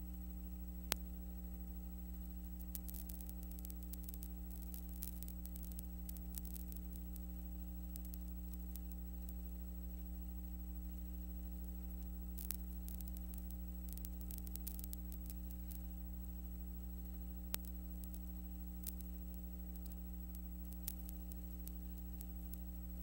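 Steady electrical mains hum with scattered faint crackling clicks. This is the noise floor of a transfer of silent film, with no sound recorded on it.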